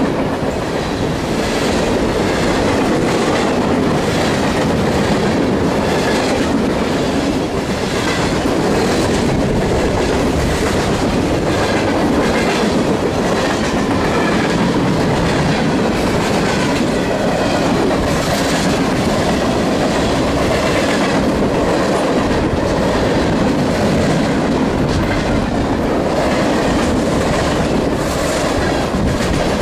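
Cars of a long mixed freight train rolling past close by: a steady, loud rumble of steel wheels on rail, with a running clickety-clack as the wheel sets cross rail joints.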